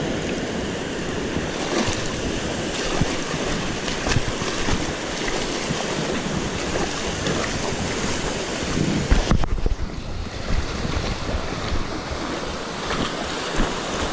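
Waves washing on the shore with wind buffeting the microphone, a louder gust of wind rumble about nine seconds in.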